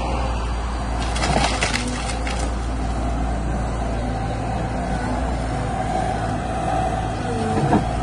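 Tracked CAT excavator's diesel engine running steadily as the machine works its grab on a tree, with a cluster of sharp cracks about a second to two and a half seconds in. Near the end, a short falling squeal ends in a knock.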